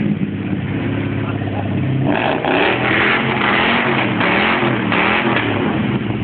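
Ford Mustang GT's V8 engine idling, then revved repeatedly from about two seconds in, its pitch rising and falling with each blip of the throttle.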